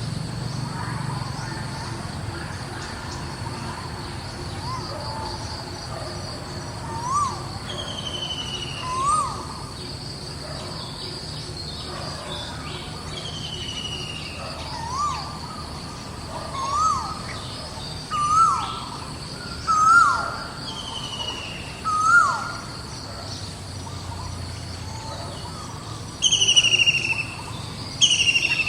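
Birds calling over a steady, high insect drone. Short rising notes repeat every second or two and grow louder, with falling whistled notes above them. Near the end comes a quick run of loud downward-slurred whistles.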